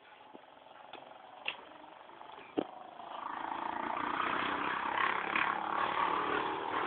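A few sharp knocks, then about three seconds in a motor vehicle engine starts to be heard and keeps running steadily.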